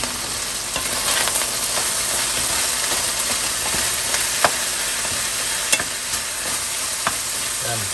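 Chicken pieces, onion and garlic sizzling in olive oil in a frying pan (sautéing, gisa), stirred with a wooden spoon that clicks against the pan a few times.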